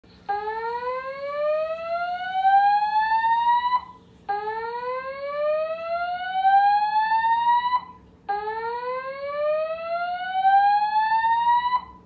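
Edwards fire alarm system sounding the slow-whoop evacuation tone: three rising whoops, each about three and a half seconds long, with short gaps between them. The alarm was set off by someone pulling a fire alarm, a false alarm.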